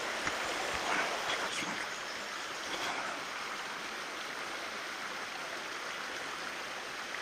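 A small, shallow creek running steadily over stones, an even rushing of water. A few faint rustles come in the first few seconds.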